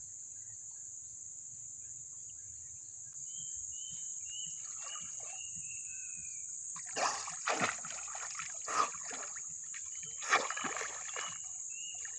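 A person wading into a muddy, flood-swollen river, with several splashes of water in the second half. Behind it runs a steady high insect buzz, and twice a bird calls in a series of short, falling chirps.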